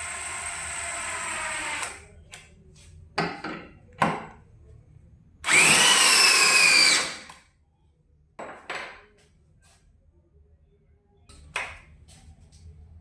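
Cordless DeWalt brushless hammer drill running in several pulls of the trigger. First comes a steady run of about two seconds, then short blips. Near the middle a louder run of about a second and a half rises and then sags in pitch, and a few more brief blips follow near the end.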